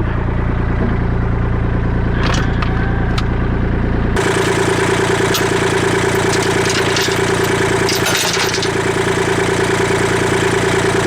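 Kubota L2501 tractor's diesel engine running at a steady speed. About four seconds in, the sound changes abruptly to a stronger, pulsing note, with some light clatter.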